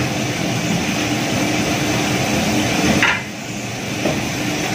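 Steady hum and hiss of commercial kitchen machinery, with a single sharp knock of something hard being set down about three seconds in. The hiss eases off after the knock.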